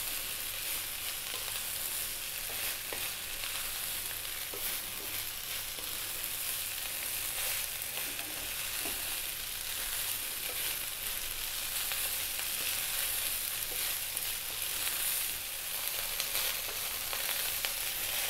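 Fried rice with potatoes and green bell pepper sizzling in an oiled wok as a wooden spatula stirs and turns it: a steady high hiss with faint ticks of the spatula in the pan.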